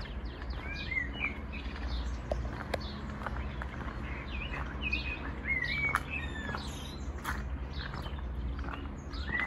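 Birds chirping in short, scattered calls, some notes gliding or warbling, over a steady low rumble, with a few sharp clicks.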